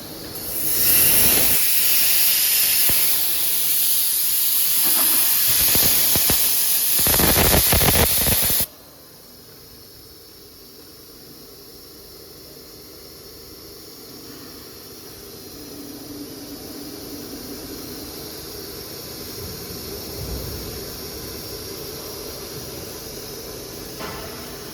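Machine hiss, like escaping air, loud for about eight seconds and then cutting off suddenly, leaving a quieter steady machine hum.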